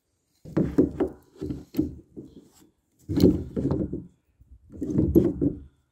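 A man's voice in about five short bursts of effort, grunting as he strains at a pipe wrench on a plastic tank fitting, with a few clicks and knocks of the wrench on the fitting.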